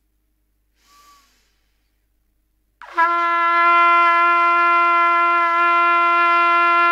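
A trumpet playing a long, steady G started with a breath attack, the note breathed in without tonguing. It swells in about three seconds in and is held evenly, after a short breath about a second in.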